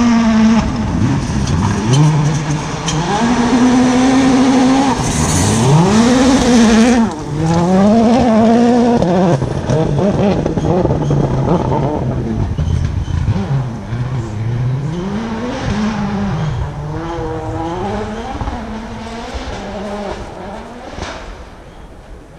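Rally car engine revving hard, its pitch rising and dropping again and again as it shifts gear and lifts off for corners. Loudest in the first half, then fading steadily as the car drives away.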